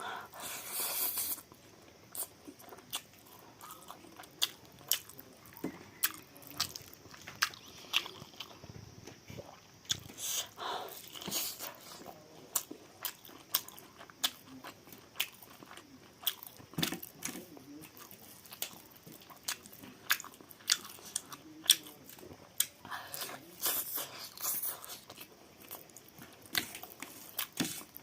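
Close-miked eating: a person chewing chicken, with frequent short, sharp mouth clicks and smacks.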